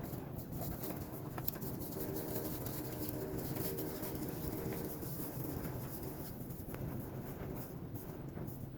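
Pigeons cooing in the background, with scattered faint clicks and handling noise.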